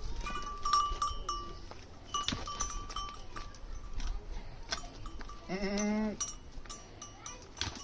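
Small livestock with bells: short ringing bell notes repeat throughout, and about five and a half seconds in one animal gives a single wavering bleat lasting under a second.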